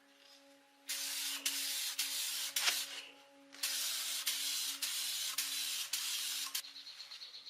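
A hissing spray in two long bursts, the first about two seconds and the second about three, with a short pause between them.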